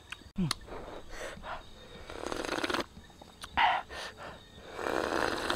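A man sniffing hard at the cooked eel: long noisy breaths through the nose close to the microphone, about two seconds in and again near the end, with a few small clicks in between.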